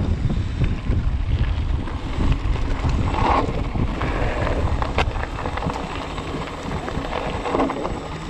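Mountain bike rolling down a gravel track: wind buffets the microphone over the rumble and rattle of tyres on gravel, with a sharp click about five seconds in. The noise eases a little near the end as the bike slows.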